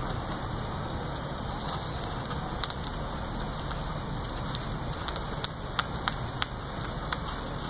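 A house fire burning: a steady rushing noise with sharp crackles and pops of burning wood, most of them in the second half.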